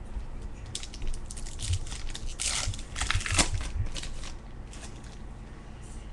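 Paper and foil rustling and crinkling as baseball cards and pack wrappers are handled: a run of short crackles for about three and a half seconds, then quieter near the end.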